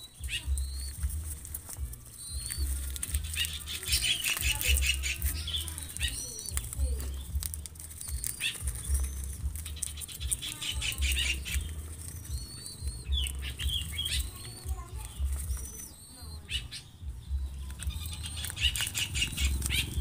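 Young zebra doves beating their wings while being hand-fed, giving repeated bouts of low flapping thumps and rapid fluttering. Short high bird chirps come and go throughout.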